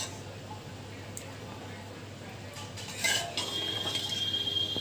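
Metal ladle clinking and scraping against the inside of a pressure cooker while keema is served out of it. A sharp clink comes about three seconds in, followed by a high, steady squeal for a little over a second.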